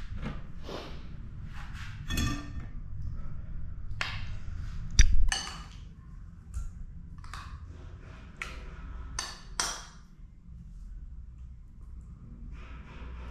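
Metal spoon scooping thick yogurt and clinking against a glass bowl and a small serving bowl: scattered scrapes and clinks, with one sharp knock about five seconds in, over a steady low hum.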